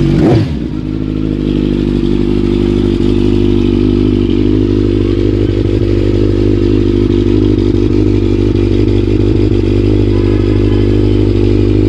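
Kawasaki Ninja 1000's 1,043 cc inline-four engine idling steadily through its twin exhausts, with no revs.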